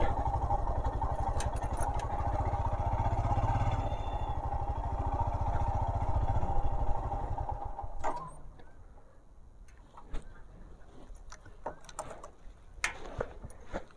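Royal Enfield Himalayan's single-cylinder engine running steadily as the motorcycle rolls slowly, then the engine sound stops about eight seconds in. A few faint clicks follow in the quiet.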